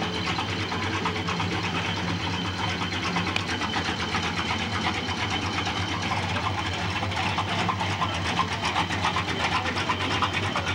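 Engine of a 1950s Ford F-100 pickup running steadily at idle, a fast, even clatter over a low hum.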